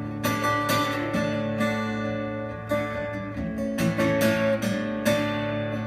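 Acoustic guitar strumming chords, with sharp strums at an uneven rhythm over ringing notes.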